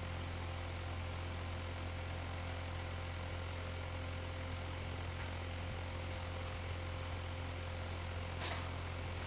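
Steady low electrical hum with a thin steady whine and background hiss. A short noisy sound comes near the end.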